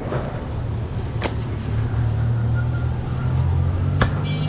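A steady low engine rumble, rising slightly in pitch partway through. Two sharp knocks of a cleaver chopping goat meat on a wooden block come about a second in and near the end.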